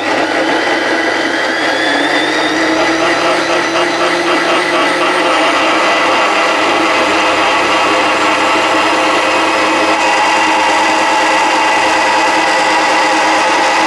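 Countertop electric blender running continuously, pureeing plums with water into juice. Its motor tone rises a little over the first few seconds and then holds steady.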